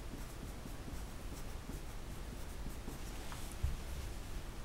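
Pencil writing on paper: short, faint scratching strokes as words are lettered by hand, with one soft bump against the table about three and a half seconds in.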